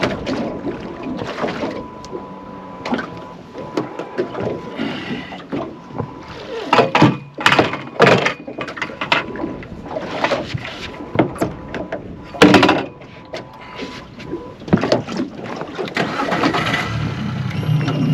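Irregular splashes of water from a big hooked barramundi thrashing at the surface while it is fought from a small boat, the loudest bursts about seven to eight seconds in and again about twelve seconds in.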